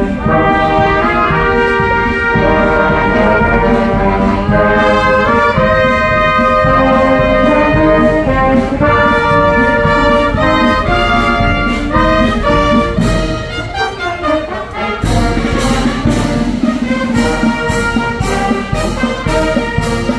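Live brass band of trumpets and trombones playing a tune together. About fifteen seconds in, a steady percussion beat joins.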